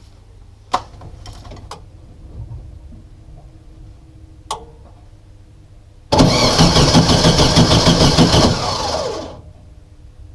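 A few clicks, then, about six seconds in, the starter motor cranks the 1970 VW bus's air-cooled flat-four for about three seconds without it catching, and stops. It does not fire for lack of spark at the distributor.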